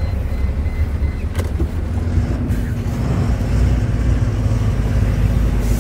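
Truck's diesel engine and road noise heard from inside the cab while driving, a steady low rumble with a single click about one and a half seconds in.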